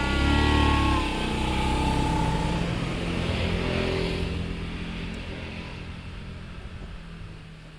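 A motor vehicle engine passing by, loudest in the first few seconds and then fading steadily away.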